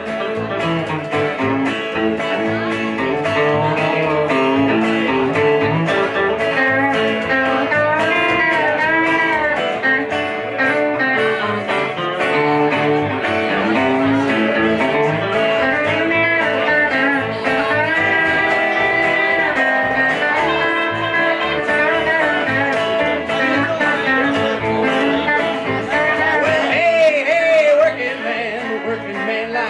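Live country-blues band playing an instrumental break between verses: electric guitar, upright double bass and acoustic guitar, with the lead line bending notes up and down a few times.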